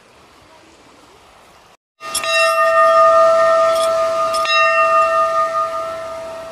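Temple bell struck about three times, starting about two seconds in, each strike setting off a loud ringing of several steady tones that slowly fades.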